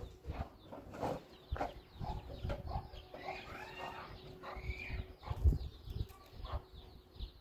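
Chickens clucking with birds chirping throughout, over knocks and clanks as a kettle and firewood are handled on a small sheet-metal wood stove, the loudest knock about five and a half seconds in. A faint steady hum stops a little after five seconds.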